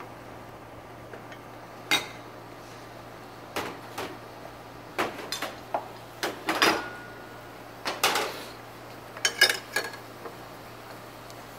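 Wooden spatula knocking and scraping in a metal saucepan of simmering milk soup, with the pan clattering as it is shifted on the gas stove grate: irregular clatters, busiest from about five seconds in, over a low steady hum.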